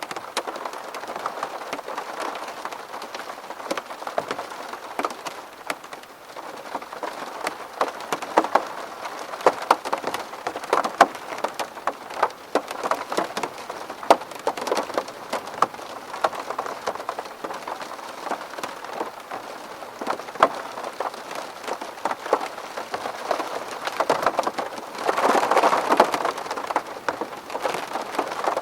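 Steady rain pattering on window glass, with many separate drops ticking sharply against it. A heavier burst of rain swells up for a second or two near the end.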